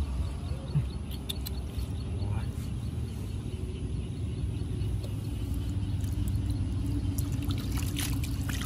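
Hands splashing lightly in shallow water over a steady low rumble. Near the end, water pours and splashes out of a tipped glass tank onto wet ground.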